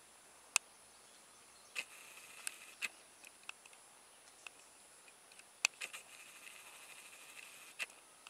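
A flock of red-breasted parakeets calling while they feed: scattered short, sharp squawks, with two stretches of steady chatter, about two seconds in and again from about six seconds in.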